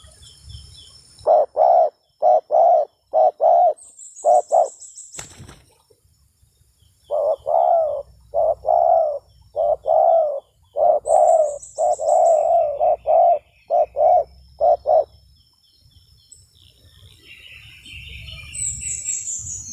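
Spotted dove cooing: two runs of repeated coos, the second one longer, with small birds chirping high above. A sharp click comes about five seconds in.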